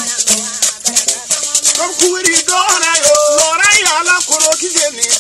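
Traditional Bissa griot music: gourd rattles shake a fast, steady rhythm under a man's singing voice that rises and falls, with a gourd-bodied string instrument playing along.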